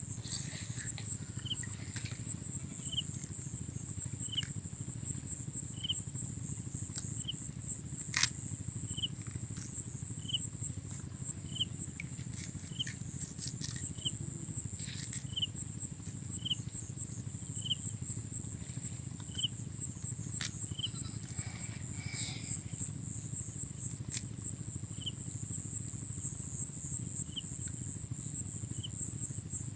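Steady high-pitched drone of insects such as crickets, with a short chirp repeating about once a second that pauses after about twenty seconds and then resumes, over a low background rumble and a few faint clicks.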